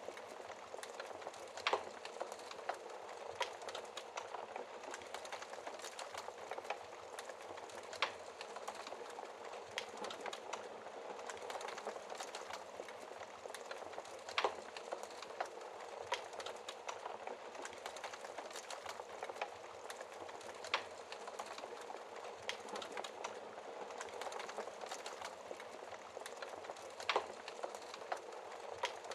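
Fire in a fireplace crackling: a steady soft hiss scattered with small irregular crackles, and a sharper pop every several seconds.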